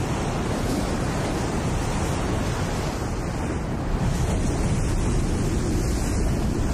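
Wind rushing steadily, a dense blizzard-like noise with no tone in it.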